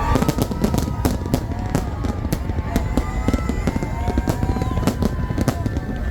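Fireworks display: a rapid, irregular run of bangs and crackles, several a second, over a steady low rumble.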